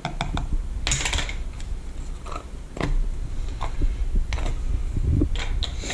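A plastic measuring spoon scooping coarse tumbling grit and tipping it onto rocks in a rock-tumbler barrel: irregular clicks and scrapes with short sandy pours, over a steady low rumble.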